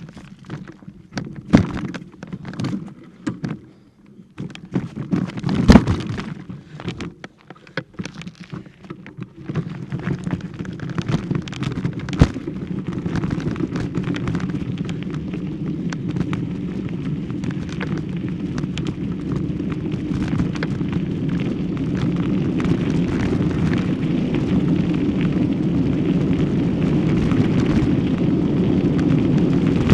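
Handling noise on a handheld camera's microphone while it is carried: irregular sharp knocks and bumps for about the first ten seconds, then a steady low rumble that grows slowly louder.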